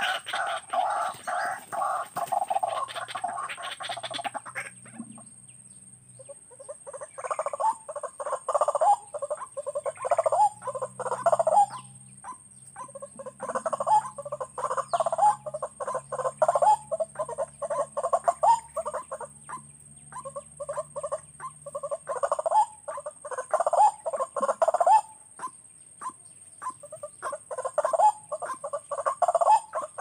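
White-breasted waterhen calling: rapid repeated harsh notes in several bouts a few seconds long, separated by short pauses.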